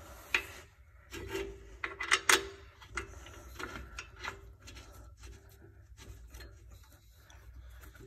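Brake caliper bolts being threaded in by hand on a rear disc brake caliper: a few sharp metal clicks and taps, the loudest about two seconds in, with scraping and rubbing of metal in between.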